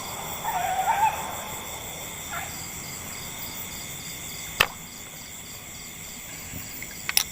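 A single sharp snap of a shot being fired at a fish, about halfway through. Cicadas or crickets keep up a steady high drone, and a few small clicks follow near the end.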